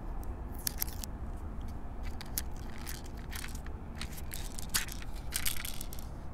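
Toystar Spy Revolver airsoft BB pistol being worked by hand at the hammer: a run of sharp plastic clicks and short rattling, ratchet-like clusters, the loudest about a second in and again near the end.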